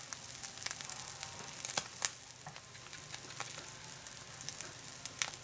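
Duck egg and eel-catfish roe mixture frying in hot oil in a pan: steady sizzling with sharp crackling pops. The loudest pops come a little under two seconds in, just after two seconds, and about five seconds in.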